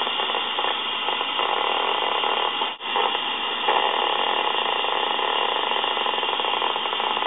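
Amplified nerve signal from a cockroach leg played through a SpikerBox: steady static hiss full of popping spikes, the spontaneous firing of the living neurons in the leg. The sound drops out for a moment about three seconds in.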